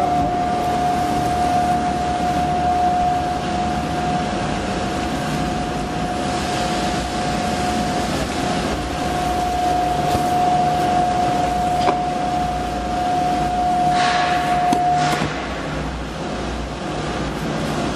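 Elephant's Foot double-auger mattress machine running, its two screw augers turning and churning pillows and cushions. Over the steady machine noise there is a constant whine that stops about fifteen seconds in, with a few short sharp sounds just before it stops; the running noise carries on.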